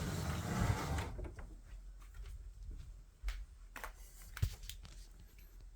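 Rustling for about a second, then a few faint, scattered knocks and clicks from someone moving about and handling things.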